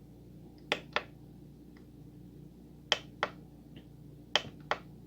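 Cursor buttons on a Korg N264 keyboard's panel pressed, clicking in three quick pairs a second or two apart as the edit screens are stepped through.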